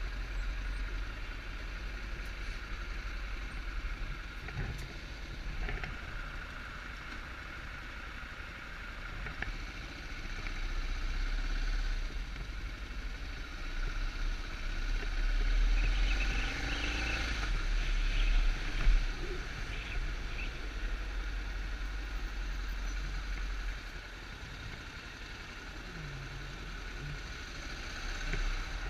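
Motorcycle engine running at low speed in stop-and-go city traffic, with a steady low rumble of wind on the action camera's microphone and other traffic around. The sound grows louder for several seconds through the middle, with one short sharp sound near its end, then drops back.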